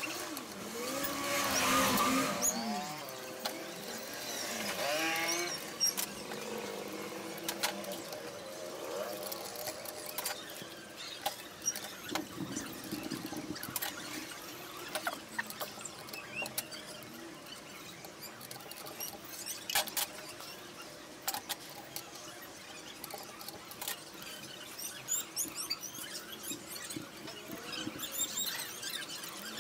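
Small metal clicks and taps of hand tools working on a Honda Dio engine's valve gear while the tappet clearances are set. A run of high squeaks in the first six seconds.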